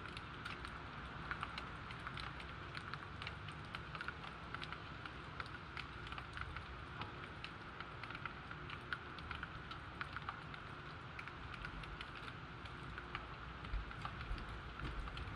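Steady rain falling, with many close raindrops ticking irregularly on a hard surface. A low rumble swells near the end.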